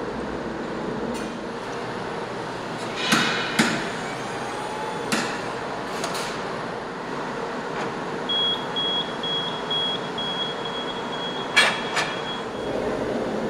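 Steady casting-shop machinery noise with several sharp knocks, two of them about half a second apart near the start and two more near the end. In the second half there is a run of short electronic beeps, about three a second.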